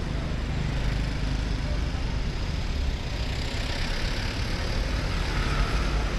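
Steady street traffic noise: vehicle engines running with a continuous low rumble.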